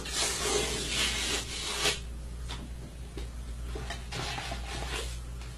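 A paper envelope being torn open and handled: paper ripping and rustling, loudest in the first two seconds, then shorter, fainter rustles.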